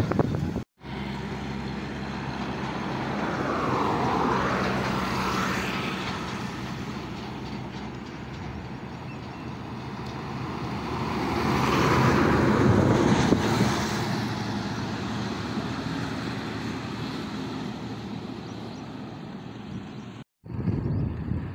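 Heavy trucks driving past on a highway, engine hum and tyre noise swelling and fading as each goes by: one pass about four seconds in and a louder one about twelve seconds in. The sound cuts out briefly twice, near the start and near the end.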